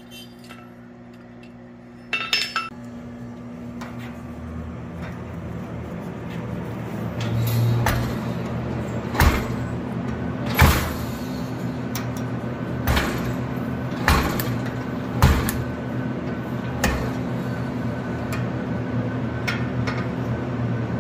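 Scattered sharp metallic clinks and knocks of steel and blacksmith's tools being handled, over a steady machine hum that starts about two seconds in and slowly grows louder.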